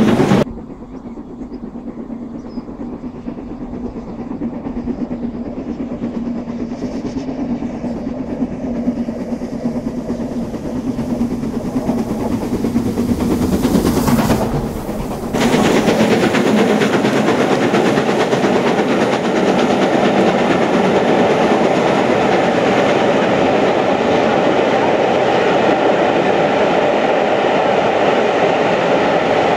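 LMS Princess Coronation Class 4-6-2 steam locomotive 46233 Duchess of Sutherland, a four-cylinder Pacific, growing louder as it approaches under steam. From about halfway its train of coaches runs past with a loud, steady rumble and wheel clatter over the rail joints.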